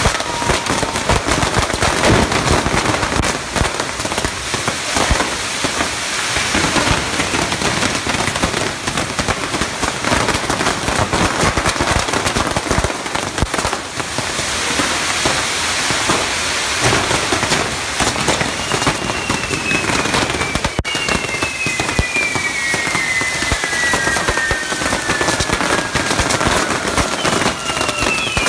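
A Maltese ground fireworks carpet (tapit) going off: a dense, continuous crackle of countless small firecrackers. From about two-thirds of the way in, several falling whistles overlap the crackle.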